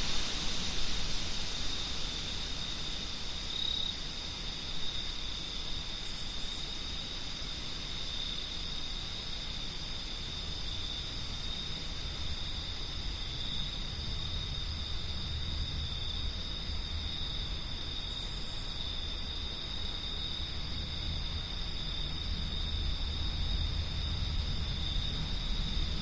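Crickets trilling in a steady, unbroken high drone over a low rumble of wind, which swells near the end.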